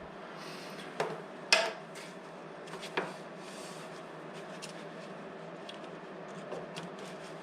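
Sharp metallic clinks and knocks of parts and a tool being handled at a motorcycle's front brake caliper as a brake-pad expander is fitted. There are three distinct clicks, the loudest about a second and a half in, followed by lighter ticks over a steady low hum.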